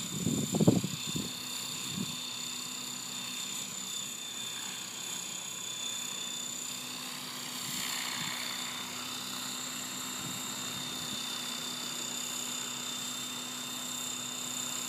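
Radio-controlled model helicopter running: a steady high whine from its motor and rotor over a low hum. A brief rumble on the microphone in the first second is the loudest moment.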